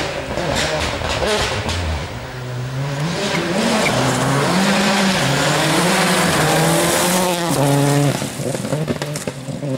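Rally car at speed, its engine revving hard and climbing through the gears, the note rising, dropping at each shift and rising again. A run of sharp crackles comes in the first two seconds.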